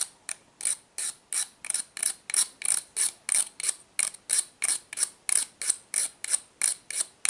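A hand file rasping along the edge of a mixer-grinder jar's steel blade, sharpening its side bevel. The strokes are short, even and repeat about three times a second.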